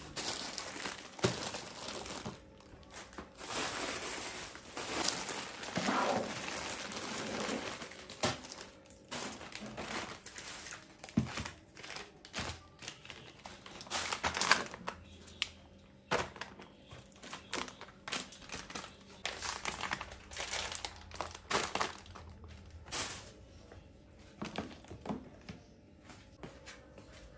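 Plastic bags and packaging crinkling and rustling in irregular bursts, with a few short knocks as items are handled and set down.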